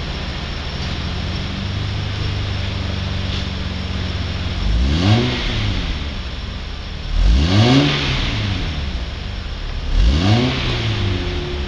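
Ford Probe GT exhaust, fitted with headers, a resonated test pipe and a Borla cat-back, idling steadily. Three short throttle blips come about two and a half seconds apart, each rising in pitch and then falling back to idle.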